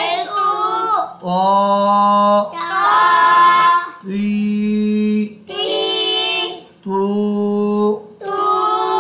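A voice chanting drawn-out Arabic syllables in a sing-song tone, six held notes of about a second each with short breaks between them. This is Qur'anic reading practice of vowels lengthened by khari zabar, khari zer and ulta pesh, each held for one alif's length.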